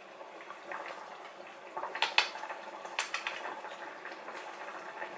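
Shabu-shabu hot pot broth bubbling at a simmer, with a few sharp clinks of utensils against dishes around the middle.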